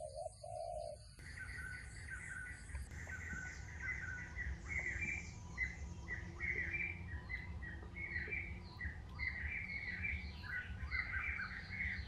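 Forest birds chirping over and over, many short calls in quick succession, with a dove cooing twice in the first second.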